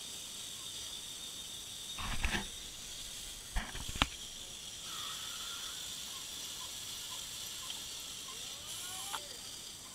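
A VEX metal-kit robotic assembly line clattering: a few sharp knocks about two seconds in and again near four seconds, over a steady high hiss.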